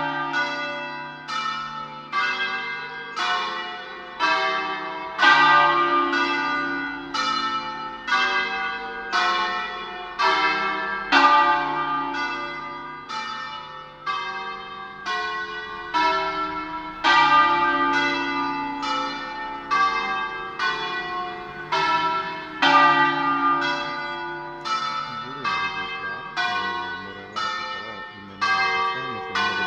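Church bells in a bell tower ringing together, one strike after another about every half second to a second, each stroke ringing on into the next.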